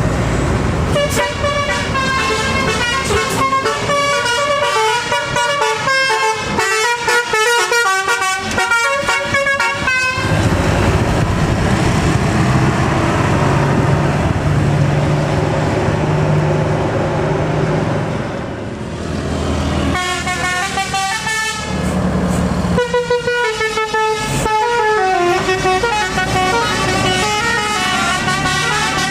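Indonesian bus 'telolet' musical air horns (Basuri type) playing quick tunes of stepped notes, in three bursts: a long one from about a second in to about ten seconds, a short one around twenty seconds, and another through the last six seconds. Between the bursts, engine drone and road noise from passing traffic.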